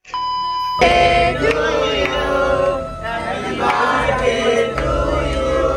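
A steady electronic beep, like a TV test tone, sounds for under a second. Then a choir sings long held notes.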